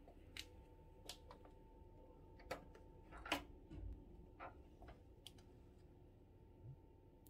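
Faint scattered clicks and knocks of a glass-panelled door's handle and latch being worked as the door is pulled open, the loudest knock about three seconds in.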